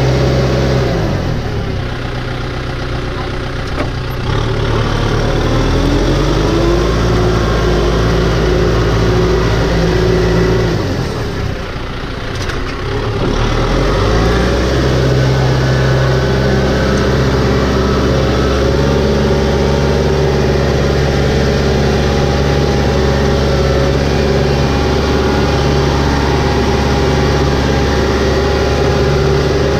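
Farm tractor's diesel engine running under load as it drives through a flooded, muddy rice paddy. The engine note sags about two seconds in and again about eleven seconds in, and climbs back in pitch between the two sags.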